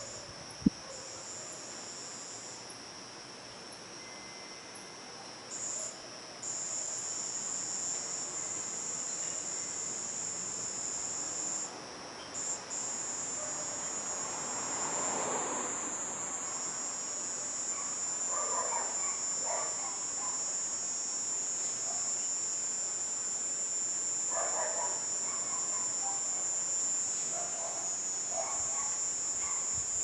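Cicada singing a high, steady buzzing whine that stops briefly a few times in the first half, then holds unbroken. Fainter short chirps, lower in pitch, come and go in the second half.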